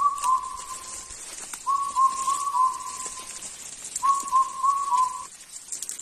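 A clear whistled call, a phrase of four short notes stepping slightly down in pitch, heard three times about two seconds apart, over a steady high-pitched hiss.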